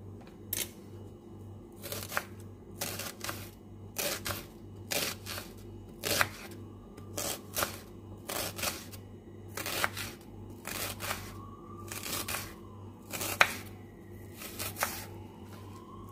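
Kitchen knife chopping a white onion on a wooden cutting board: a run of sharp knocks of the blade hitting the board, irregular, roughly one to two a second.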